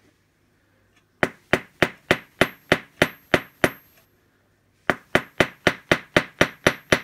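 Small hammer tapping a rivet over on a metal block, peening the rivet head. Two quick runs of sharp metallic taps, about three to four a second: the first starts about a second in, the second follows after a pause of about a second.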